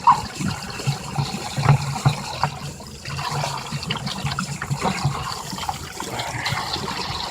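Water running and trickling, with occasional short knocks.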